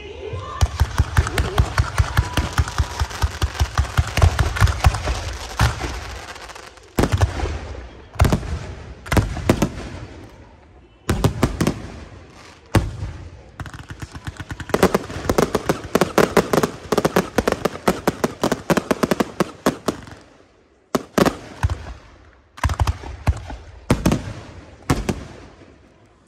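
Aerial fireworks going off in rapid volleys of sharp bangs and crackles, several a second, with brief lulls between volleys.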